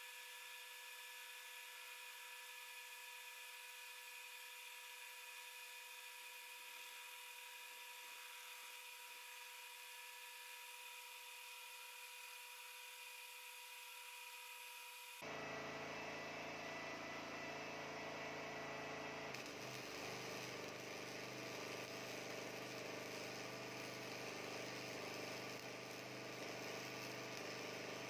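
Metal lathe running steadily with a faint whine while turning a steel part. About halfway the sound changes suddenly to something louder and fuller, and in the last third there is the steady crackling hiss of electric arc welding on steel.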